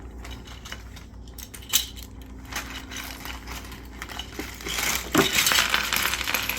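LEGO pieces and their plastic bags being handled: a few scattered clicks, then, about two-thirds of the way through, a dense, louder clatter and rustle of small hard plastic pieces.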